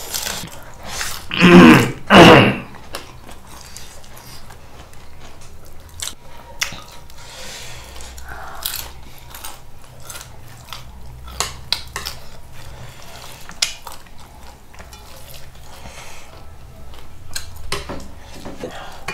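Close-miked eating sounds: chewing and biting, with scattered clicks of utensils and dishes. Two loud short bursts come about a second and a half and two seconds in.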